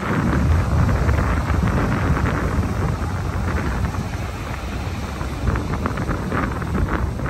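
Wind buffeting the microphone with a heavy low rumble, over the wash of surf breaking on the shore.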